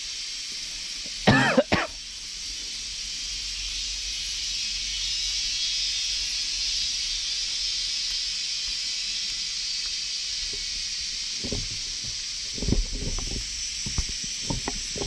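A steady high hiss of outdoor background noise that swells slightly in the middle. About a second and a half in there is a short cough-like vocal sound, and near the end a few low thumps.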